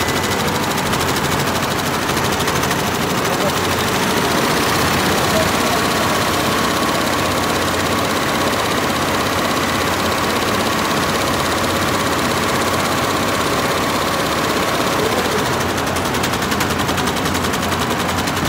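34-head Yonthin computerised embroidery machine running, its many needle heads stitching together in a steady, rapid mechanical clatter.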